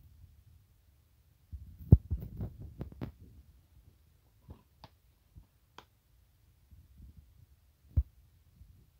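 Plastic DVD cases being handled: a cluster of clicks and knocks about two seconds in as a case is opened, a few light clicks after, and a single sharp knock near the end, over low rumbling handling noise.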